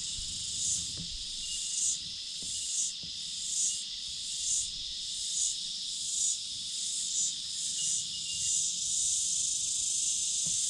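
Loud chorus of cicadas: a steady high shrill that swells and fades a little more than once a second.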